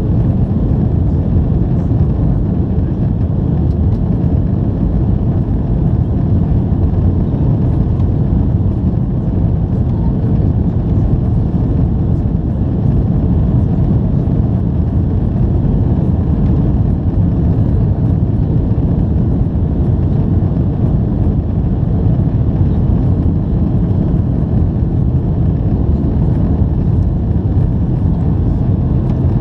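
Boeing 737-800 jet engines and rushing air, a loud, steady low rumble that does not change in pitch or level.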